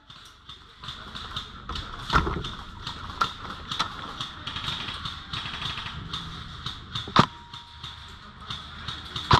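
Sporadic airsoft gunfire: scattered sharp clicks and snaps. The strongest comes about two seconds in, with a dull knock under it, and another about seven seconds in.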